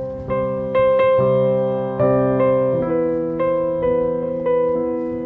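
Background piano music: a slow melody of single notes and chords struck about every half second, each dying away.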